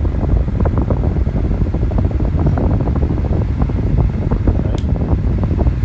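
Holmes Blizzard Jr. desk fan running, its airflow blowing onto the microphone as a loud, fluttering rumble.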